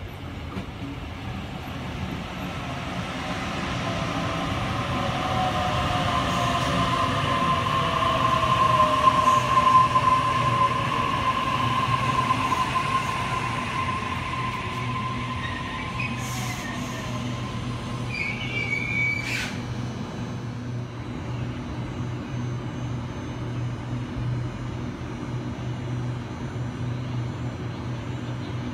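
Sydney Trains Waratah double-deck electric train pulling in and stopping: a falling traction-motor whine and a steady squeal as it brakes, loudest about ten seconds in. A short high squeal and a few sharp clicks come about two-thirds through, then the standing train keeps a steady low hum.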